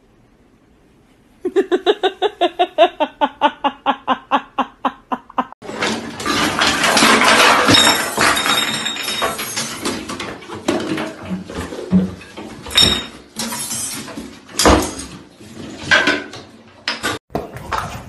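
A fast run of short, evenly spaced pitched sounds, about six a second for some four seconds. Then a long stretch of clattering and scrabbling with knocks and clinks as kittens and loose objects move about in a hard bathtub.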